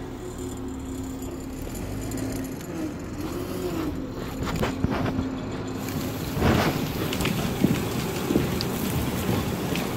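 An engine running steadily, its hum wavering briefly in pitch, with camera-handling noise and a few sharp cracks in the second half.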